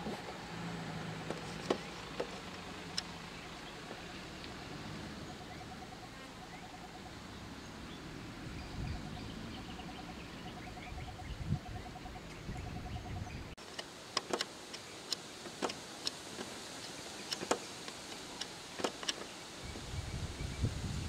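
Road ambience: a vehicle engine running at a distance with low swells as vehicles pass, and a short call repeated at an even pace in the middle. After a sudden change, sharp clicks come every second or so, and a low rumbling sets in near the end.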